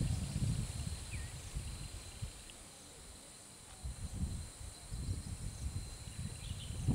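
Steady high-pitched insect trilling over a low rumble that comes and goes, dropping away about three seconds in and returning.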